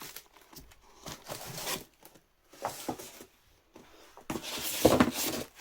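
Packaging being handled and torn open by hand: a few short rustling, tearing bursts, the loudest near the end.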